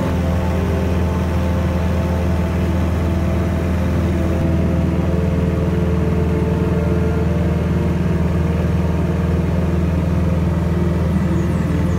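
Single-engine light aircraft's engine and propeller droning steadily in flight, heard from inside the cabin; a little louder from about four seconds in.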